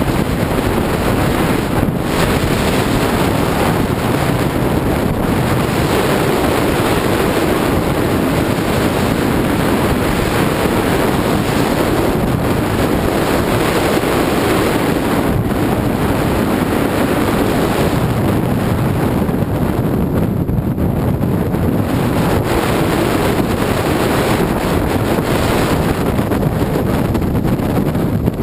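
Steady wind rushing over an action camera's microphone as a skier descends, mixed with the hiss of skis sliding over packed snow.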